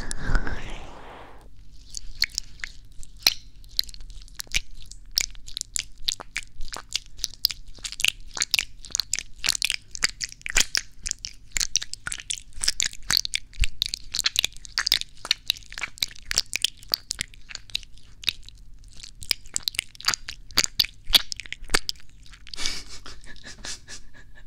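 Hands rubbing over the ears of a binaural ASMR microphone, heard right at the ear as dense, irregular crackling and scratching. It stops a couple of seconds before the end.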